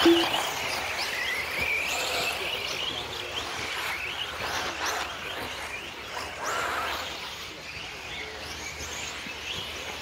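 1/8 scale electric RC buggies racing, their brushless motors whining high, the pitch rising and falling as they speed up and slow down around the track. A brief louder blip comes right at the start.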